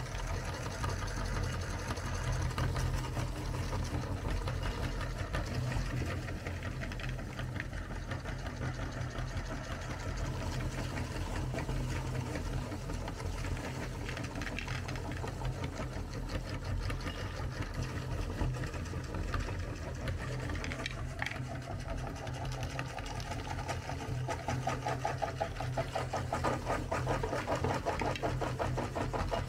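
Motor-driven aluminium meat grinder running steadily while it grinds chocolate candy balls and forces them out through the perforated plate: a continuous low hum with a rapid, even clatter, a little louder near the end.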